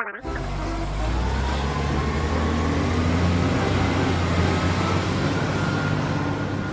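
Truck engine running with a steady low rumble and a faint whine that rises slowly, as when a heavy vehicle pulls away and gathers speed.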